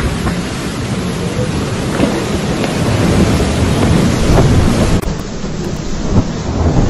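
Torrential wind-driven rain and strong gusting wind in a storm, a dense, continuous rush with a heavy rumble from gusts hitting the phone's microphone. The sound shifts abruptly about five seconds in.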